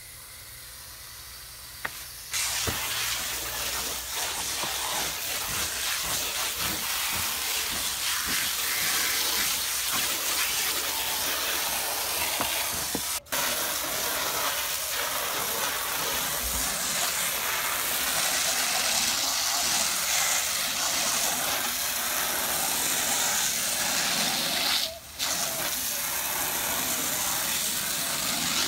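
Steady hiss of a pressure-washer water jet hitting wooden playset panels, starting about two seconds in and cutting out briefly twice.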